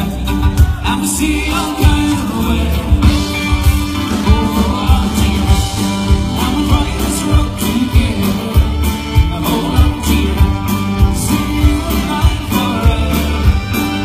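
Live country band playing an upbeat jive number on a PA, with a singer, acoustic guitar, fiddle and drums keeping a steady beat.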